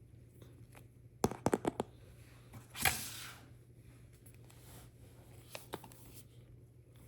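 Packaging being handled: a quick run of about five sharp clicks, then about a second later a brief tearing rustle of paper or plastic.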